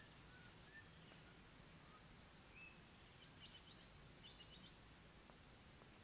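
Near silence: faint outdoor background with a few small bird chirps and two short trills from songbirds.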